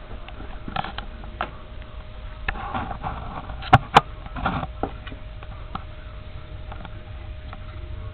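Handling noise as a camera is moved and set down: scrapes and light knocks, then two sharp knocks in quick succession about four seconds in, over a steady faint hum.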